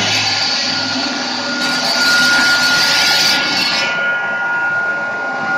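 Liomax stone-cutting machine running, its diamond disc giving a steady high whine over loud mechanical noise. A louder hiss rises from about two seconds in and drops away near four seconds.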